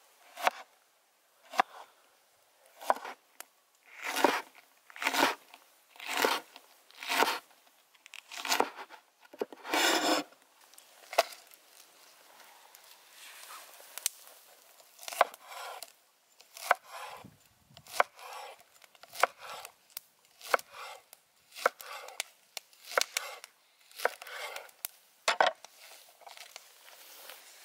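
Steel cleaver chopping chili peppers and then spring onions on a wooden cutting board, one separate cut at a time, about a stroke a second. There is a short stretch of softer handling sound in the middle.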